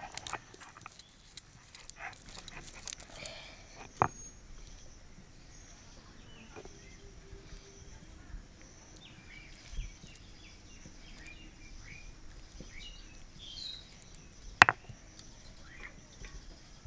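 Hand-held grinding stone pressing and scraping cashew nuts on a flat stone grinding slab (shil-nora), with scattered small clicks and two sharp stone-on-stone knocks, one about four seconds in and one near the end.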